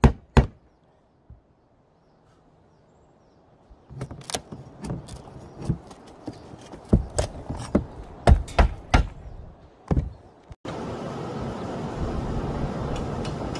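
Irregular sharp knocks and clacks of roof tiles being handled and walked on. They come in a few quick strikes at first, pause, then run in a busy cluster for several seconds. Near the end they give way abruptly to a steady rushing noise.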